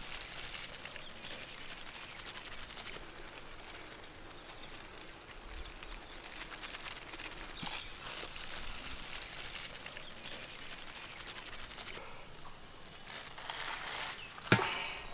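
Outdoor background hiss with soft handling sounds: a ladle spreading white sauce over grated cheese and gloved hands laying lasagna sheets in baking trays. One sharp knock about three-quarters of a second before the end.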